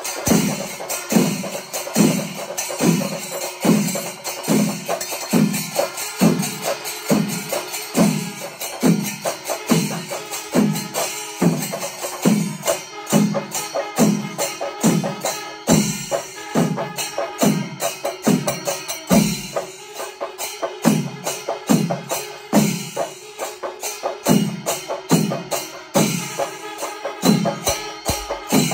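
Festival percussion ensemble: drums beating a steady, even rhythm of about three low strokes every two seconds, each stroke dropping slightly in pitch, under fast continuous cymbal clashes.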